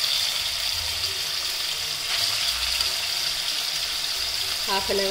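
Masala-marinated chicken pieces sizzling steadily in hot oil in a kadai, frying just begun.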